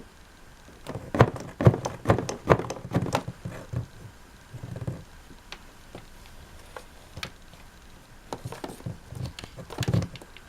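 A pet chewing on a power cord: runs of quick sharp clicks and crunches, a busy burst from about a second in and another near the end, with a few scattered clicks between.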